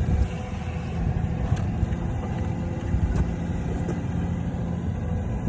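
Steady low rumble of an engine running, from a vehicle or piece of construction machinery, with a few light clicks.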